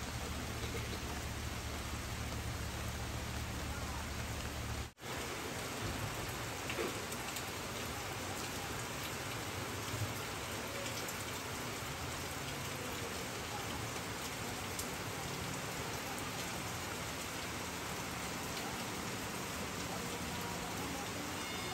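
Steady rain falling, an even hiss of drops on wet leaves and on puddled pavement, broken by a momentary dropout about five seconds in.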